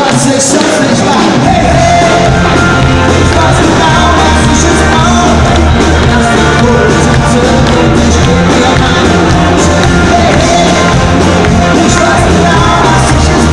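Live band performing a pop-rock song with a male lead singer, recorded from the audience: sung vocals over guitars, with the low bass and drum end coming in fully about a second in.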